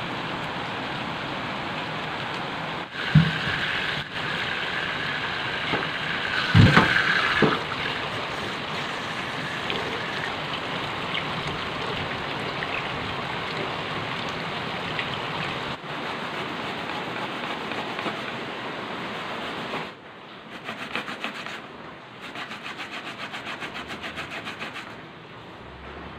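A steady hiss of water, broken by a few knocks and clatters in the first several seconds. Near the end it gives way to quick, regular rasping strokes of raw cassava being grated on a plastic grater.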